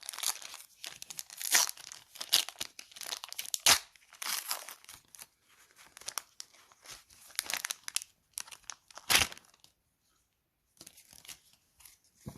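A foil trading-card pack being torn open and crinkled, crackling in irregular bursts, then dropping away to a few faint rustles near the end.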